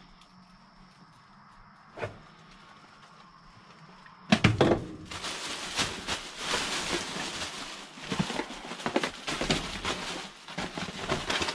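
Rummaging through trash in a dumpster: a single click in a quiet stretch, then from about four seconds in a loud, continuous rustling and crinkling of rubbish with many knocks and clatters.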